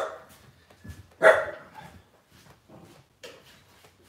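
Dog barking: one loud bark right at the start and another just over a second later, then a few fainter short sounds.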